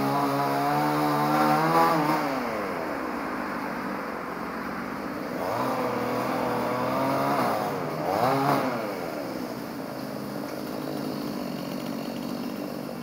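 Druzhba two-stroke chainsaw running at high revs, dropping to idle after about two seconds, then revved up twice more before settling back to idle.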